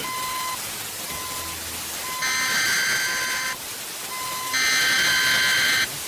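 Emergency alert system tones over a steady hiss of distorted FM radio static: a short high beep repeating about once a second, broken twice by a louder, harsh multi-tone alert blast about a second and a half long, the first about two seconds in and the second about four and a half seconds in.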